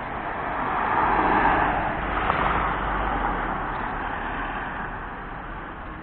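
A car passing by on the street: its noise swells to a peak about a second and a half in, then slowly fades away.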